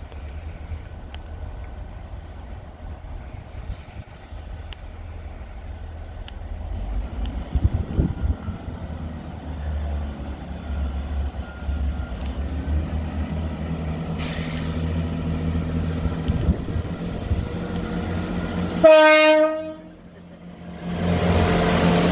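A train approaching with its diesel engine rumbling and building, then one short horn blast about a second long, just before the train comes past loudly near the end.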